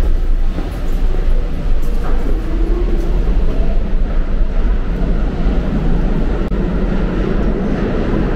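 New York City subway train running, a loud steady rumble.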